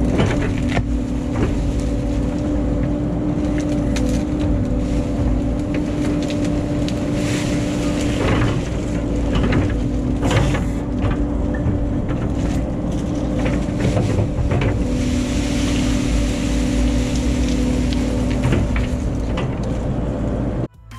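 CAT 308 excavator's diesel engine running at a steady pitch, with scattered sharp knocks and cracks over it. It cuts off abruptly just before the end.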